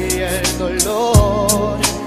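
A song playing as the soundtrack: a singer's voice with wavering held notes over a bass line and drum beat.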